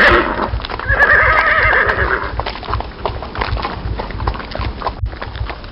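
Horse neighing: a wavering, quavering whinny about a second in, lasting about a second, after the tail of another neigh at the very start. Then hoofbeats, a quick irregular clopping that continues to the end.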